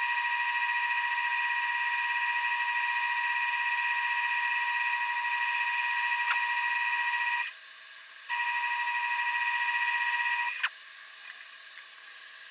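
Wood lathe motor running with a steady high-pitched whine while spinning a bowl. The whine drops out for under a second about seven and a half seconds in, comes back, then stops with a click a little over ten seconds in.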